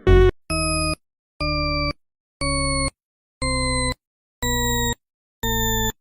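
A series of electronic beeps, about one a second, each lasting about half a second, the pitch shifting slightly from beep to beep.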